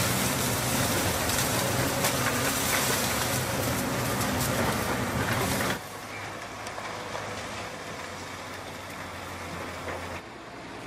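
Heavy engine running loud and rough with rattling noise; almost six seconds in it cuts off abruptly to a quieter, steady low engine hum, which drops again near the end.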